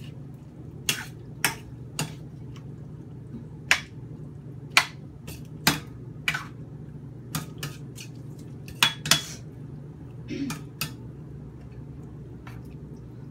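A spatula knocking and scraping against a stainless steel skillet while stirring a shrimp stir-fry: a dozen or so irregular sharp clinks over a steady low hum.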